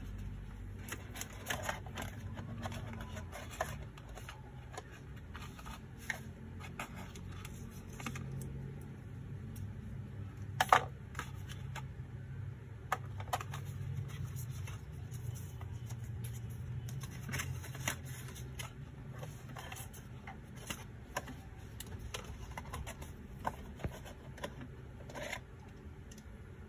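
Handling of a white cardboard product box during unboxing: scattered clicks, taps and rustles as the box and its tray are opened and a small gadget and its cable are lifted out, with one sharper click about ten seconds in. A low steady hum runs underneath.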